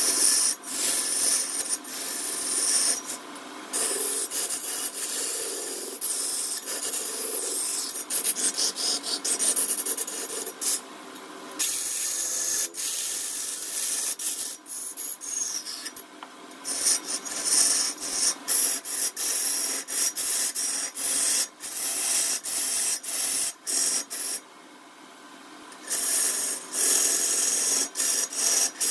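Wood being worked on a lathe: a hand tool scrapes against the spinning workpiece in long, steady, high-pitched passes, broken by short pauses as the tool comes off the wood.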